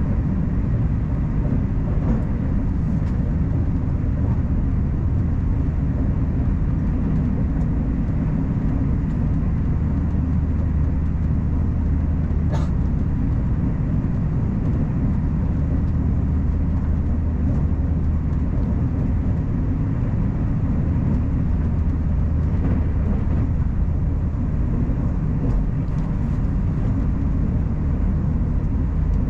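Steady low rumble of a Taiwan Railway Puyuma Express tilting electric train running along the line, with a single sharp tick about twelve seconds in.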